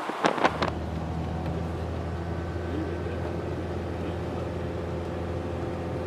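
A few sharp knocks, then a steady low engine drone that starts abruptly about half a second in and holds even, like a motor vehicle running.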